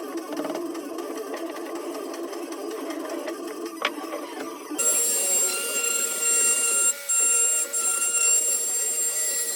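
Power tool running, first with a steady rough hum; about halfway in a higher steady whine takes over and cuts out briefly twice.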